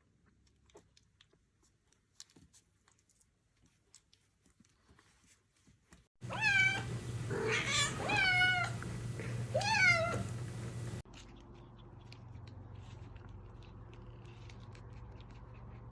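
Domestic cat meowing several times in short, rising-and-falling calls over a steady low hum. The meows start after about six seconds of near silence and stop about five seconds later.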